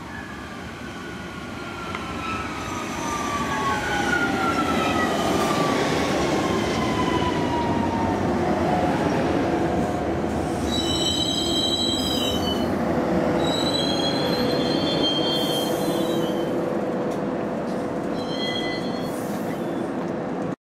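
Metrovalencia electric commuter train pulling into a station and braking: its running noise grows over the first few seconds while the motor whine slides steadily down in pitch as it slows. In the second half, high-pitched squeals come in three bouts as it comes to a stop.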